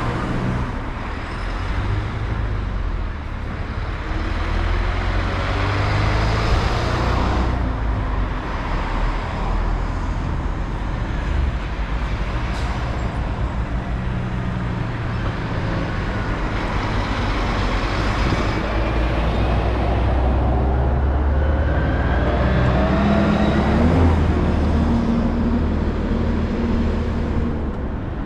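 Car driving on a road: steady engine rumble and tyre noise, with the engine note rising a few times as it speeds up.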